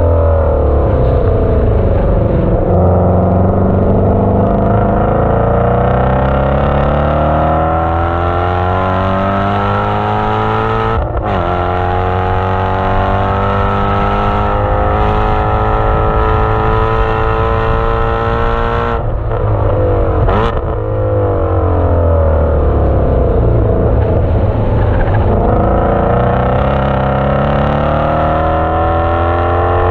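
2017 Shelby GT350's 5.2-litre flat-plane-crank V8 at full throttle on track, heard through a microphone at the exhaust. Its pitch climbs steadily for about ten seconds, drops sharply at an upshift about eleven seconds in, climbs again to another quick shift around nineteen seconds in, falls under braking for a few seconds, then rises again near the end as the car accelerates once more.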